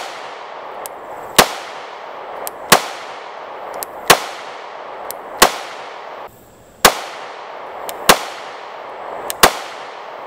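A 9 mm micro-compact pistol firing eight single shots at a steady slow pace, about one every second and a third, each shot ringing out briefly. Fainter sharp pops fall between most of the shots.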